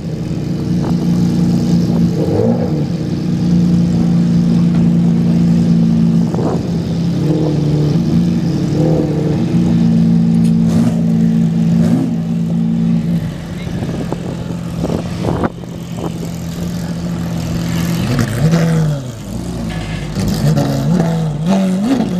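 Ferrari Enzo's V12 with a Boden Autohaus titanium exhaust idling steadily, with several short blips of the throttle. The note changes about halfway through, and there are more uneven blips near the end.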